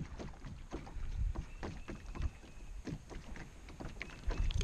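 A canoe being paddled: small splashes and drips from the paddle and water lapping against the hull, a scatter of light ticks and splashes.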